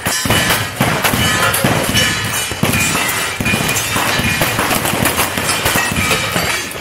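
Rapid lever-action rifle fire at steel cowboy-action targets: sharp shots a fraction of a second apart, with the steel plates ringing after the hits.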